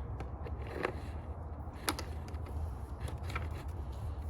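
A few light clicks and taps of wiring and plastic parts being handled as a wire is pushed through a motorcycle fender, over a steady low rumble.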